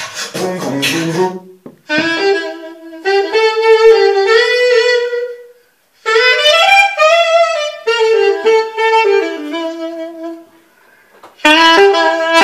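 Music played through an Ultimate Ears UE Boom Bluetooth speaker placed several metres across the room: a beat-heavy opening second, then a lead melody of long held notes in phrases with short breaks.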